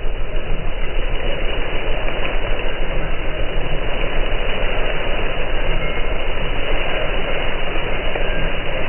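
Heavy engine of almond-harvesting machinery running steadily, with a strong low hum under a continuous mechanical rumble.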